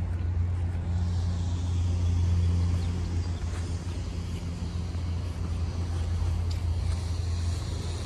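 Steady low hum of a motor vehicle engine running nearby, over outdoor background noise.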